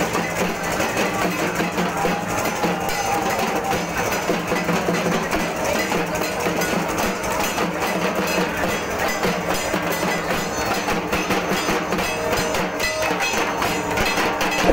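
Folk drumming for a street procession dance: large skin-headed drums beaten by hand in a fast, steady rhythm, with the strokes getting busier in the second half.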